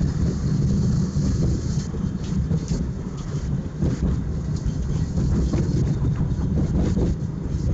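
Tram running along the track, heard from inside the car: a steady low rumble with short clicks and rattles scattered through it.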